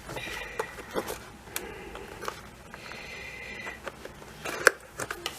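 Hands handling a small cardboard product box and its packaging: faint rustling and light taps, with a thin squeaky friction sound twice, and a few louder taps near the end.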